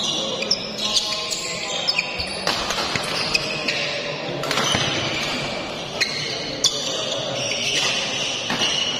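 Badminton doubles rally: sharp racket-on-shuttlecock hits every second or so, with court shoes squeaking on the floor between them, echoing in a large sports hall.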